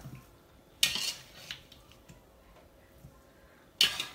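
Metal slotted skimmer scraping against a nonstick frying pan while scooping out sautéed chayote pieces: two short, sharp scrapes about three seconds apart.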